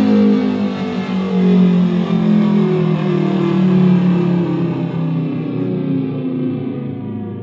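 Synthesized Thunderbolt 1000T-style siren, several tones at different pitches, played through a karaoke machine speaker. The tones slide slowly down in pitch and fade as the siren winds down.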